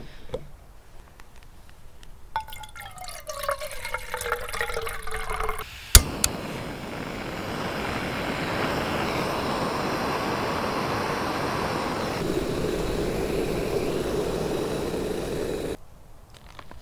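Water poured from a plastic bottle into a camp stove pot, with a falling pitch as the bottle empties. About six seconds in a sharp click from the igniter, then the canister gas burner hisses steadily for about ten seconds before cutting off abruptly near the end.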